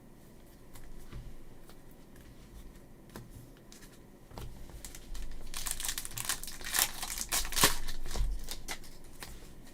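Donruss Optic card pack's wrapper being torn open and crinkled, starting about four seconds in after a few soft handling clicks.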